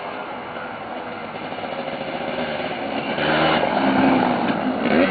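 Quad bike engine approaching and growing louder, loudest from about three seconds in as it comes close, with a rev near the end.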